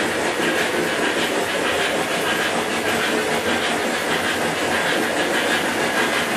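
O-gauge model trains running on a double spiral of three-rail track: a steady rolling rumble and clatter of wheels over the rails, with motor hum and a hiss.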